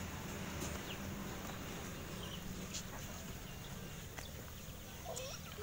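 Bare feet thudding now and then on packed dirt as children jump in an elastic-rope game, over a steady low outdoor rumble. Near the end, a chicken clucks a few times.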